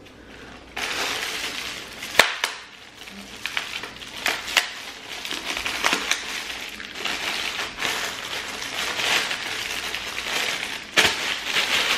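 Plastic packaging of a hair-extension bundle crinkling and rustling as it is handled and opened, with sharp crackles scattered through it, the loudest about two seconds in and near the end.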